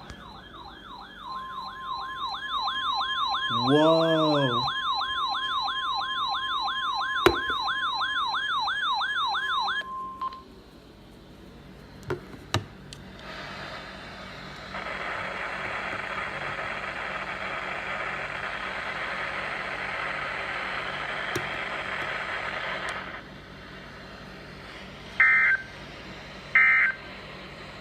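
Weather-radio alert with the wrong tones: for about ten seconds a warbling, siren-like wail, about two sweeps a second, sounds over a steady attention tone near 1 kHz, then both stop. About ten seconds of radio hiss follow with no voice message. Near the end come three short data bursts about a second apart, the pattern of an EAS end-of-message code.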